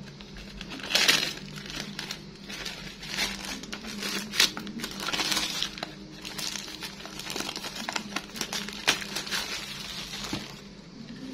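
Plastic packaging crinkling and rustling in the hands, with irregular light clicks and knocks from a lattice plastic desk organizer being handled and unpacked.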